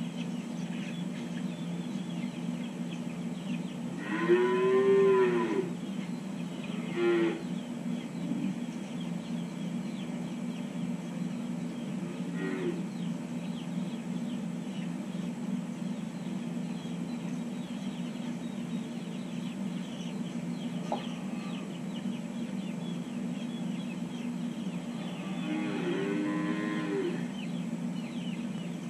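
Calves mooing: a long call about four seconds in, a short one about three seconds later, a faint one near the middle and another long call near the end, over a steady low hum.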